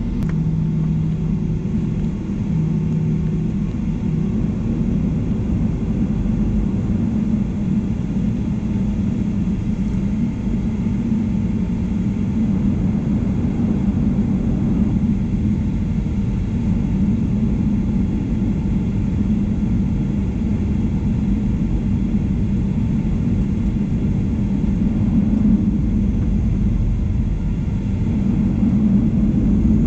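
Boeing 737-800 cabin noise heard from inside the cabin: a steady low rumble of the engines and airframe, growing slightly louder near the end.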